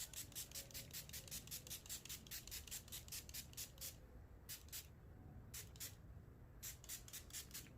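Quick, rhythmic rubbing strokes, about five a second: a long run, then a few shorter runs with brief pauses between them.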